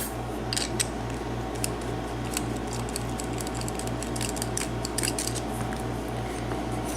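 Light, scattered metallic clicks and taps from the opened padlock and small tools being handled, over a steady low hum that pulses about four times a second.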